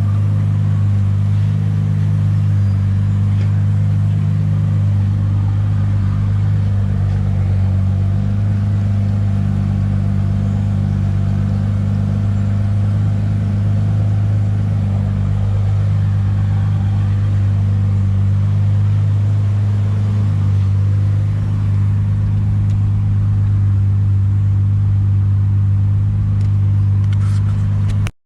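Nissan RB30 3.0-litre inline-six in an S14 Silvia, heard from inside the car, running with a steady, even drone that neither rises nor falls. It cuts out abruptly at the very end.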